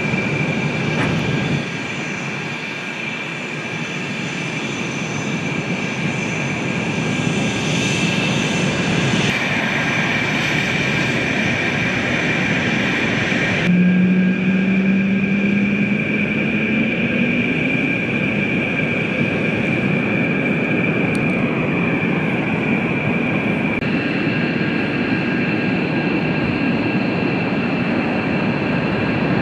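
Twin General Electric F404 turbofans of F/A-18 Hornet fighters running on the runway: a steady high whine over a broad rumble. About halfway in, a lower tone rises in pitch for a few seconds as the engines spool up. The sound shifts abruptly several times.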